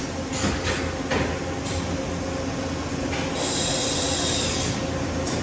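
Mori Seiki MH-63 horizontal machining center running under power: a steady hum with a steady tone over it. There are a few short sharp clicks or hisses in the first two seconds, and a louder hiss from about three and a half to nearly five seconds in.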